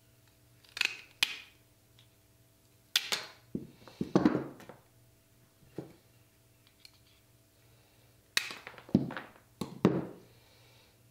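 Hand tile nippers snapping small pieces off glazed ceramic tile: sharp cracks and clicks in clusters, a couple about a second in, a busier run at three to four and a half seconds, and another group near the end.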